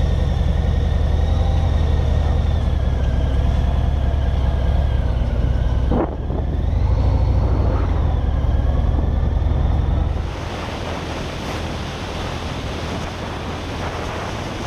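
Harley-Davidson LiveWire electric motorcycle's motor whining as it rides slowly, its pitch wandering and rising, over a low rumble. About ten seconds in this gives way to a steady rush of wind noise at road speed.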